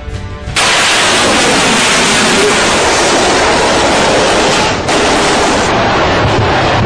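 BrahMos missile's solid-fuel booster firing at launch: a loud, steady rush of noise that starts abruptly about half a second in and briefly dips near five seconds.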